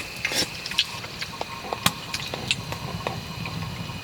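Eating sounds: scattered light clicks and taps of utensils against a dish, a dozen or so spread irregularly, over a steady low hum.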